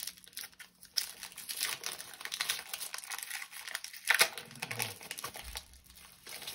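Foil wrapper of a Pokémon TCG booster pack crinkling and crackling as it is handled and torn open, in a run of irregular crackles with a sharper, louder rip about four seconds in.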